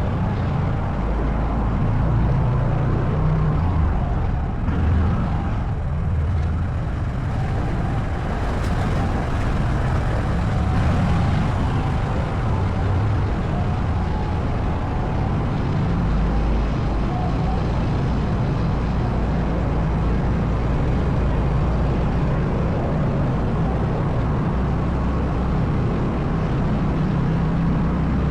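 ATV engine running steadily, with no let-up or sharp change.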